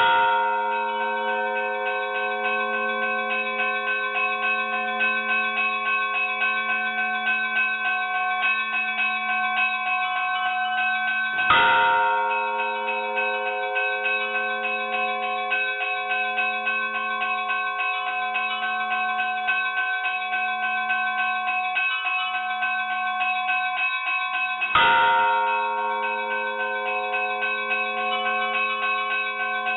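Church bells ringing: smaller bells chime rapidly and without pause while a large bell is struck three times, roughly every twelve seconds. Each heavy stroke rings out and slowly fades under the chiming.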